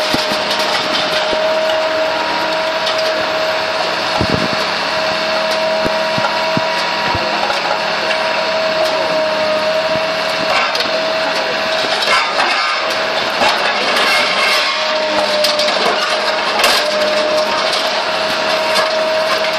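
Factory shop-floor machinery running: a steady, dense din with a constant high hum and scattered clicks and knocks.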